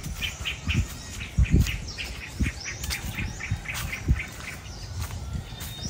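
A bird calling in a quick series of short chirps, about four a second, which fades out a little past halfway. Low dull thumps sound here and there underneath.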